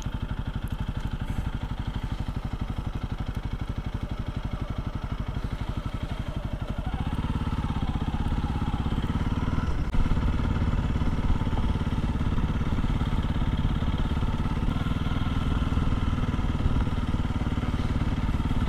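Honda CRF300L's single-cylinder engine running under way as the motorcycle is ridden, a steady pulsing beat. It grows louder and fuller about seven seconds in as the throttle opens.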